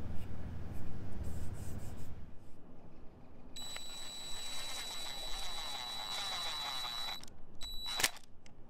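Cordless DeWalt driver running steadily for about three and a half seconds as it drives a screw into clamped white plastic board (starboard), with a steady high whine. A short second run and a sharp click follow near the end, after a couple of seconds of low background rumble at the start.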